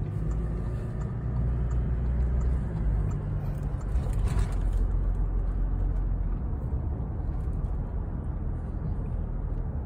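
Car engine and tyre noise heard from inside the cabin while driving, a steady low drone.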